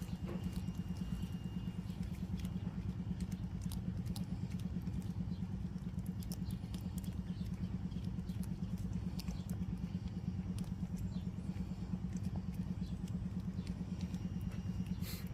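Cat licking a churu treat: scattered small, wet tongue clicks over a steady, low, fast-pulsing rumble.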